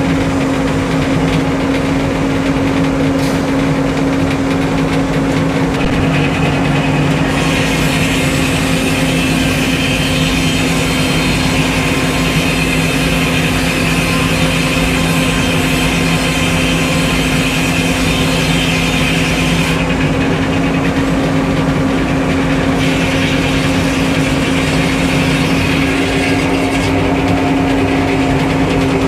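Sawmill engine running steadily. Over two long stretches a high hiss rises above it, the blade cutting through a log.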